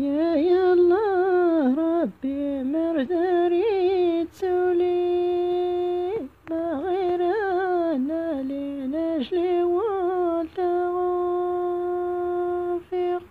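A single voice singing unaccompanied in Amazigh timnadin style. The melody winds and is ornamented, broken by short breaths, and there are two long held notes.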